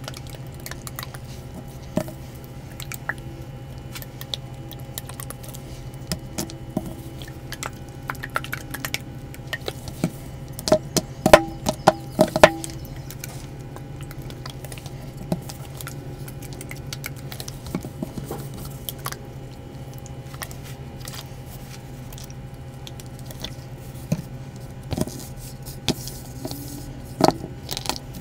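A red-dyed, wet block of gym chalk being squeezed and broken by hand on a plastic board: scattered soft squishes and crunches, with a run of the loudest snaps and cracks about halfway through. A steady low hum runs underneath.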